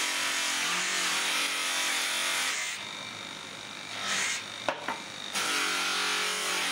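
Electric buffing wheel polishing a cast brass horse: a steady rubbing hiss over the motor's hum while the brass is pressed against the spinning wheel. About three seconds in the rubbing stops, leaving the motor's hum with a sharp click, and it starts again near the end.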